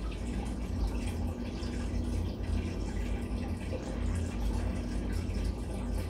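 Steady low background rumble with a faint hum, even throughout.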